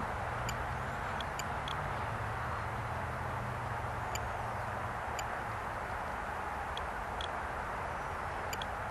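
Steady outdoor background noise, an even hiss over a low hum, with a few faint high ticks scattered through.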